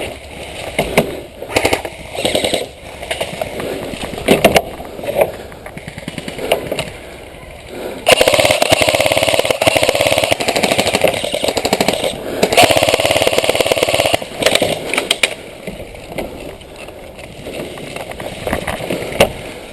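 Airsoft guns firing: scattered single shots and short bursts, then two long, loud full-auto strings, one about 8 seconds in and the other about 12 seconds in. Scattered shots follow.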